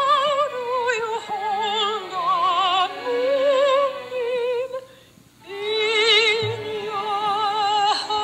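Recorded show tune played from a smartphone held up to a microphone: women's voices singing in harmony, long held notes with wide vibrato, with a brief dip about five seconds in.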